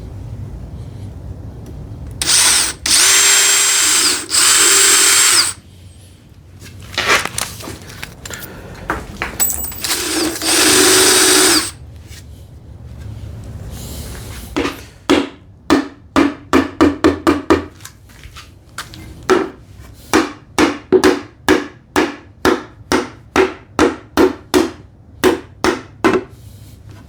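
Power drill boring clearance and pilot holes into dovetail joints in wood: three steady full-speed runs with a motor whine, then a long string of short trigger pulses, two or three a second, through the rest.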